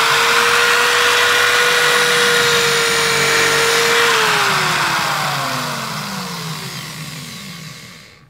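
Corded electric drill running at a steady full speed with a high whine, then let off about four seconds in and spinning down, the whine falling in pitch until the chuck stops near the end.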